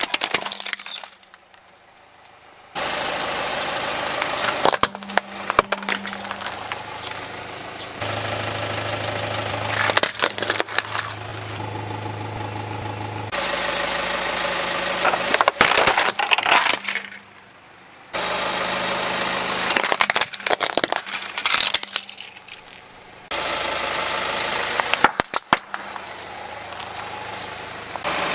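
Car tyre rolling over and crushing plastic toys: plastic cracks and snaps several times over the car's steady engine idle, across a series of separate takes.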